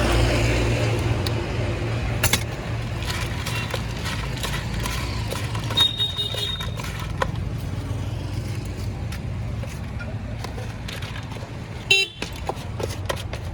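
Road traffic: a motor vehicle running close by and fading away, over a steady low engine hum, with a short high-pitched horn toot about six seconds in and scattered sharp clicks and taps.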